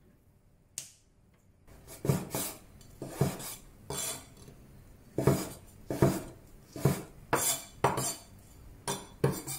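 A cleaver slicing rehydrated shiitake mushrooms on a wooden cutting board: sharp knocks of the blade meeting the board, one or two a second, starting about two seconds in. There is a single short click before them.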